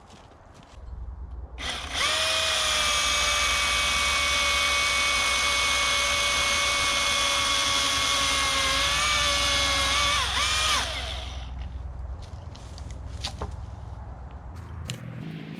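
Milwaukee M18 FUEL battery chainsaw's electric motor and chain running at full speed as a steady high whine for about eight seconds. The pitch sags and wobbles briefly near the end, then the saw stops. Softer clicks come before and after.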